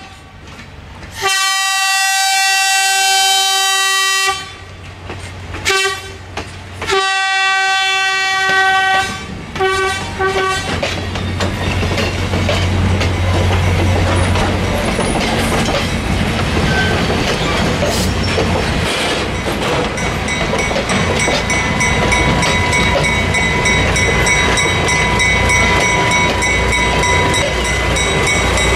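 Train horn blowing a series of long and short blasts, followed by the passing train's wheels clattering along the rails. Near the end the steady running of the rear diesel locomotive, a small GE switcher, rises as it comes by.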